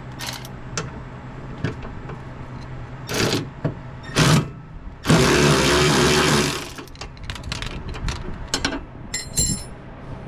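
Hand-tool work on a truck's front suspension: scattered metal knocks and clinks, two short noisy bursts, then a louder noisy burst of about a second and a half midway, over a steady low hum.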